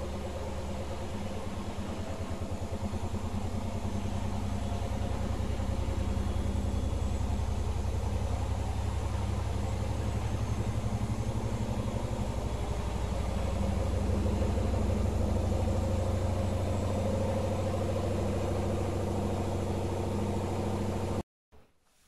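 Candy GrandO Plus washing machine spinning its overloaded drum at speed at the end of the main wash, with a steady motor hum and drum rumble. It grows a little louder about two-thirds of the way through, then cuts off suddenly near the end.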